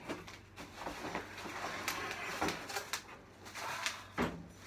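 Cardboard shipping box and plastic wrapping rustling and knocking as a bicycle suspension fork is pulled out of its packaging, with a sharper knock about four seconds in.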